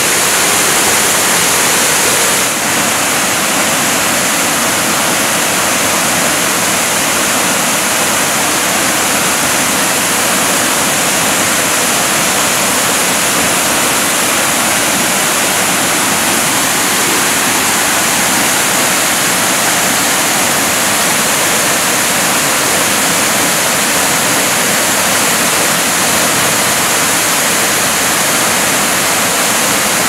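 Artificial waterfalls pouring down a rock face and splashing onto a paved walkway: a steady, loud rush of falling water, its tone shifting slightly about two and a half seconds in.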